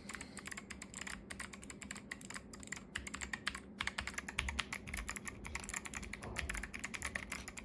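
Fast typing on a mechanical keyboard fitted with custom keycaps: a steady stream of quick key clacks that gets busier about halfway through.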